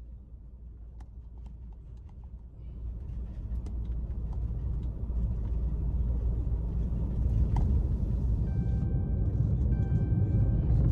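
Car cabin noise: a low road and engine rumble that grows louder from about three seconds in as the car gathers speed.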